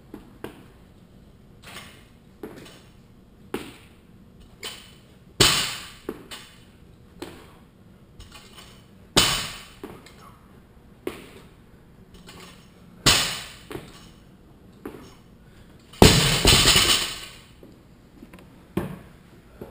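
A loaded barbell, a 45-pound bar with a 45-pound plate on each side (135 pounds), is dropped onto the rubber gym floor four times, about every four seconds, between clean and jerk reps. The last drop rattles on for about a second. Lighter knocks of the bar and plates come in between.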